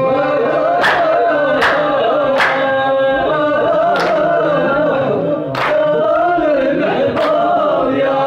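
Men singing a traditional folk chant together, with sharp hand claps keeping time a little more than once a second.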